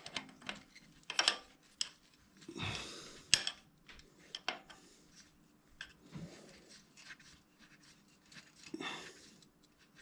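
Scattered metal clicks, clinks and short rubbing scrapes at irregular times, from hand tools and motorcycle suspension linkage parts being handled during disassembly.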